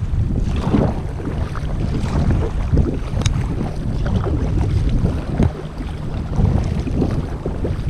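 Wind rumbling on the microphone over water splashing and lapping around a folding kayak at sea, with irregular short splashes throughout.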